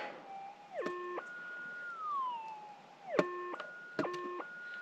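Minelab GPX 6000 gold detector's electronic tone reacting as a scoop holding the dug-up target is passed over its coil. About three times the steady tone drops, jumps to a higher multi-note signal and slides back down, with a few sharp clicks.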